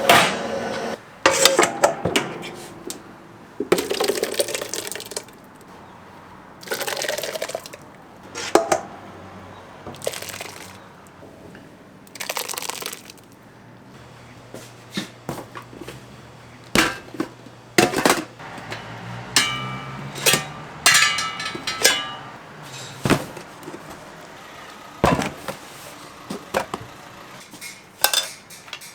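Irregular metal knocks and clinks of bungeoppang fish-bread molds and utensils being handled, with a few short hissing bursts in the first half.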